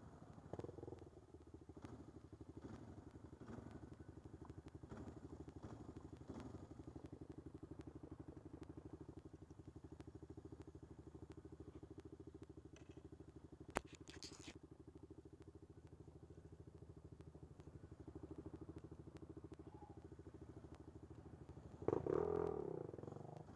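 ATV engine running steadily at low trail speed, heard from the rider's seat, with a single sharp click a little past halfway. Near the end a louder burst of engine noise comes in as another ATV pulls up close alongside.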